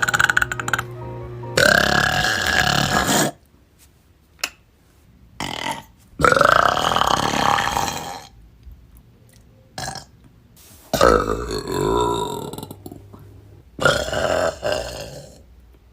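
Long, loud burps from young women, one after another: one dies away about a second in, then four more follow with gaps between them. Each lasts a second or two and wavers in pitch.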